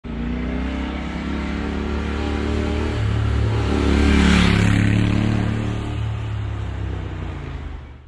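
Motorcycle engine running, growing louder to a peak about four seconds in and then easing off.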